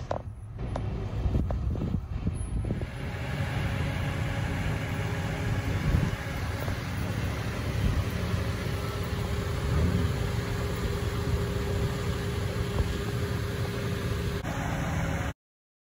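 Steady low rumble of vehicle and boat engines, with a faint steady hum through the middle; it cuts off abruptly near the end.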